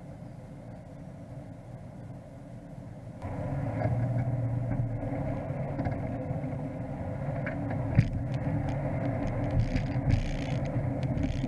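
Off-road 4x4's engine running as it drives along a rutted dirt track. It grows louder about three seconds in as the engine takes more load, then knocks and rattles from the bumps, one sharp knock about eight seconds in.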